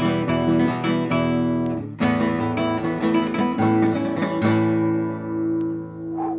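Nylon-string classical guitar strumming the closing chords of a song, the last chord left ringing and slowly fading away.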